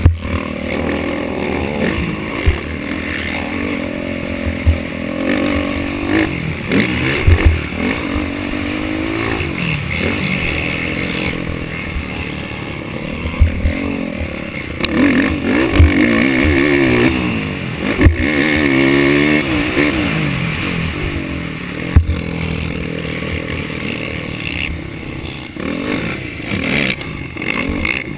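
Racing quad's engine, heard from on board, revving hard and dropping back again and again as it is ridden round the track. Sharp thumps and clatter come every few seconds.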